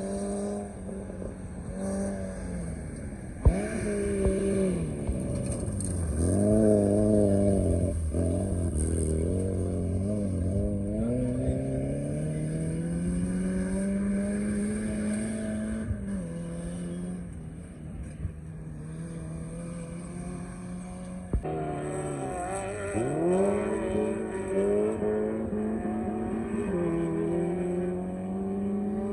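Maruti Suzuki Gypsy engine revving hard on a dirt track, its pitch climbing through each gear and dropping sharply at the gear changes. Two sharp knocks, a few seconds in and about two-thirds through.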